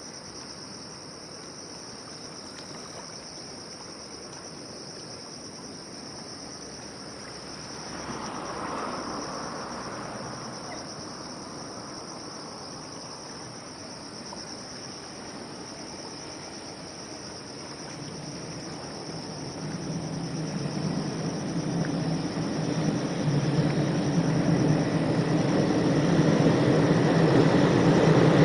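Insects chirr steadily and high throughout. From about two-thirds in, the low rumble of an approaching freight train builds and grows loud near the end.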